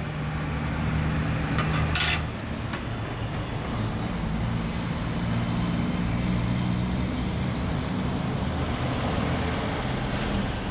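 Steady low engine drone, with a short metallic click about two seconds in from a wrench working the braided air compressor outlet line fitting.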